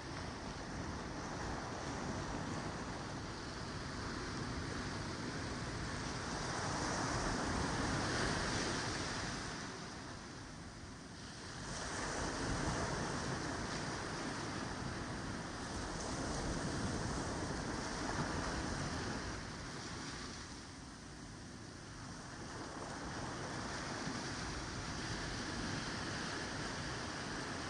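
Ocean surf on a beach: waves breaking and washing up in a continuous rush that swells and ebbs, easing off briefly about ten and twenty seconds in.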